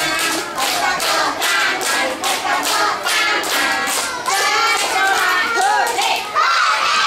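A group of young children and a teacher singing together while clapping their hands in a steady rhythm.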